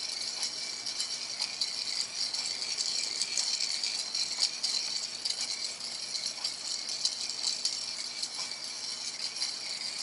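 Gearing of a motor-driven brass Earth–Moon orrery turning, making a steady fine rattling of many tiny clicks as the gear teeth mesh.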